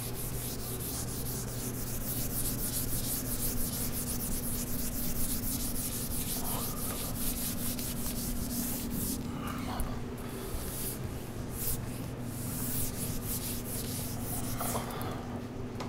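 Whiteboard eraser rubbing across a whiteboard in rapid repeated back-and-forth strokes as the diagrams are wiped off, over a steady low hum.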